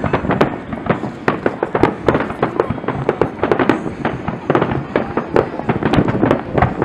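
Fireworks display shells bursting in quick succession: a dense run of bangs, several a second, with no break.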